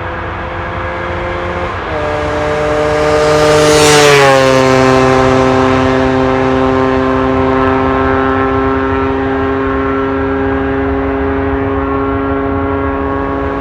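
1998 Yamaha DT125's single-cylinder two-stroke engine, fitted with an Athena end silencer, running at steady throttle as the bike passes by. The pitch lifts a little about two seconds in, the sound is loudest around four seconds in with a slight drop in pitch as it goes past, then it holds a steady note while slowly fading.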